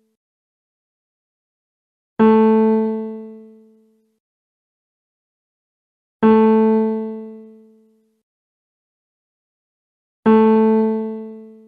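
A single piano-like note struck about every four seconds, three times, each ringing and fading away over about two seconds.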